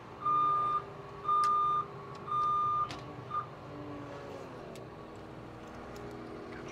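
Reversing alarm of a heavy yard vehicle beeping once a second, each beep about half a second long, stopping about three seconds in. The vehicle's engine runs underneath and drops in pitch a second or two later.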